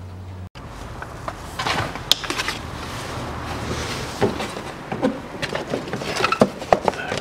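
Plastic engine splash shield being handled and pushed into place in a car's wheel arch: irregular rustling scrapes, clicks and light knocks of plastic against the body, thickest in the second half, over a faint steady low hum.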